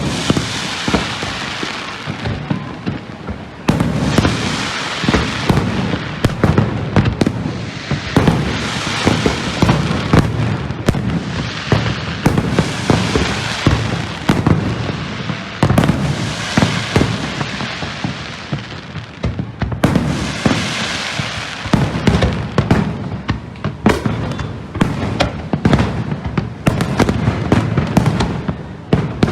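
Fireworks display going off: dense rapid bangs and crackling, with swells of crackle about every four seconds.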